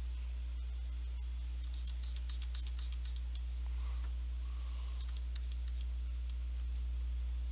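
Faint, quick clicking and scratching in two short clusters, about two to three seconds in and again around five seconds, as pencil-tool strokes are drawn on a computer, over a steady low electrical hum.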